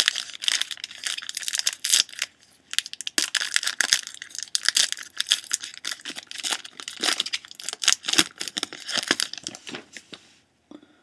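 Wrapper of a pack of hockey trading cards being torn open and crinkled, a dense crackling of plastic that stops about ten seconds in.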